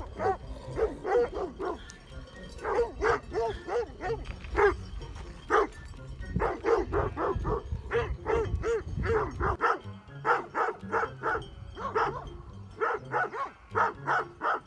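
Great Pyrenees barking over and over in quick runs of short barks, with a low rumble underneath that stops about ten seconds in.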